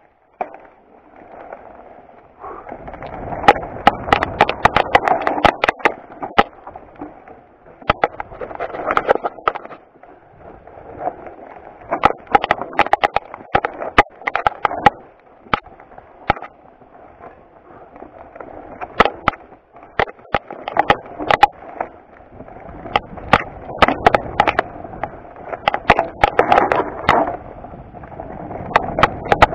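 Mountain bike descending a rocky dirt trail: tyres rolling and crunching over loose stones, with frequent sharp, irregular knocks and rattles as the bike hits rocks. It is quiet for about the first two seconds, then the rough riding noise starts and keeps on.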